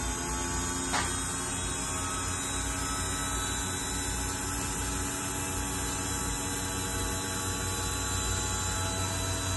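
Linton 80N model jet turbine being spun by its electric starter at about 5,000 to 5,600 rpm during the start sequence: a steady whir with several steady high-pitched tones. There is a short click about a second in.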